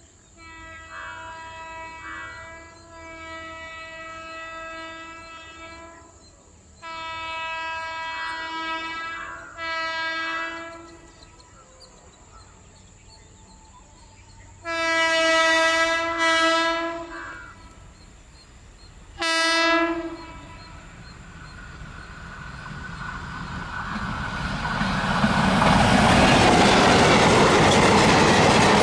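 WAP4 electric locomotive sounding its single-note horn in a series of about seven blasts, some long and some short, growing louder as it approaches. From about two-thirds of the way in, the rumble and wheel clatter of the Intercity express train rise steadily as it passes at speed, loudest near the end.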